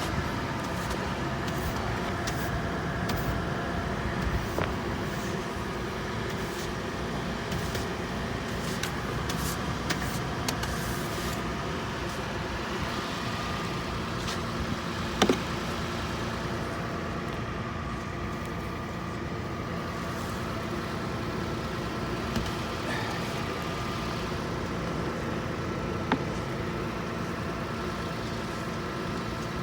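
A car's engine running steadily while ice is scraped off the car in irregular strokes over the first dozen seconds. There are two sharp knocks, the louder one about halfway through.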